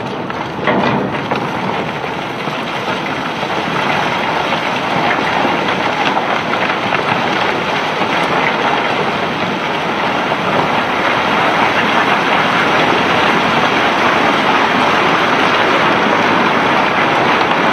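Masses of smooth cobblestones pouring and rattling against one another as a barge is unloaded, a dense continuous clatter that grows gradually louder, with a few sharp knocks in the first second.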